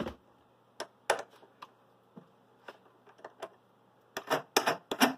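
Scattered sharp metallic clicks and clinks of a cutter being changed by hand in a mini mill's drill chuck. A few single ticks come first, then a louder cluster of clicks about four seconds in.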